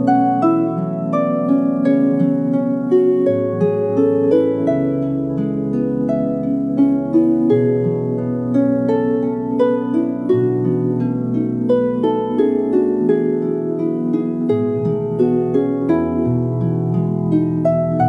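Music on a plucked string instrument in the style of an ancient Greek lyre: a steady stream of plucked notes over held low notes that shift every few seconds.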